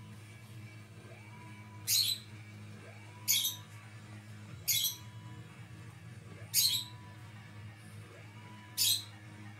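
Pet bird squawking five times in short, harsh calls a second or two apart.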